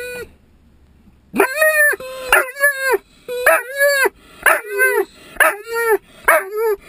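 Dog inside a car giving a quick run of about ten short, pitched yelping whines, roughly two a second, starting a little over a second in: excited vocalising.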